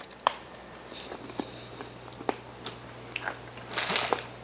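Crunching bites and chewing of a crisp cracker spread with apple jam: a handful of separate sharp crunches. Near the end, a brief rustle of packaging.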